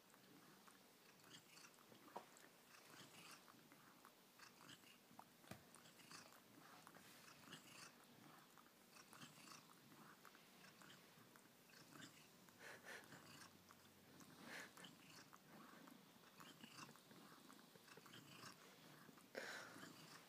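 Cat grooming a person's hair: faint, irregular licking and nibbling, soft wet clicks and smacks of tongue and teeth, a little louder now and then.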